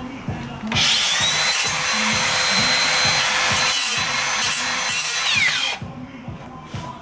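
Makita circular saw spinning up and cutting into a timber beam for about five seconds. It is then released and winds down with a falling whine.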